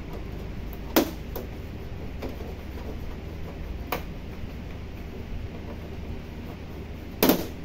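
Plastic snap clips of a Samsung UN65RU7100 TV's back cover giving way as the cover is pried loose: a few sharp clicks spread over several seconds, with the loudest and longest snap near the end.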